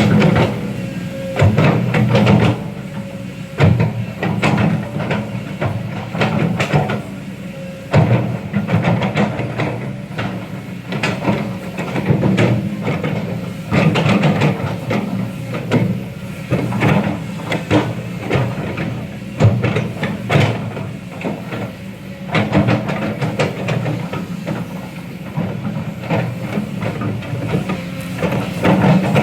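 Heavy earthmoving machine's diesel engine running steadily, with repeated metallic clanks and knocks throughout.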